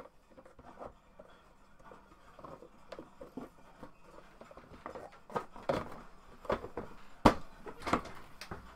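Plastic motor cover of a small air compressor being handled and fitted back into place: scattered plastic clicks and knocks that grow busier in the second half, with the two sharpest knocks near the end.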